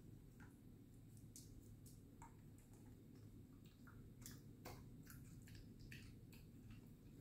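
Faint, irregular clicks and soft chewing sounds of a dog eating, with the sharpest clicks about four and a half seconds in.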